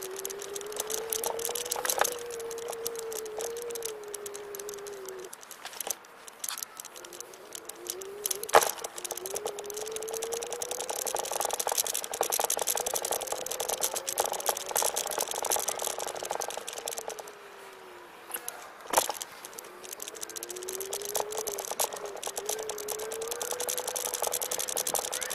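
Xplorer Ambassador electric scooter's motor whining, its pitch rising as the scooter speeds up and falling as it slows, several times over. Underneath runs a rattling hiss of the scooter rolling over paving, with three sharp knocks from bumps.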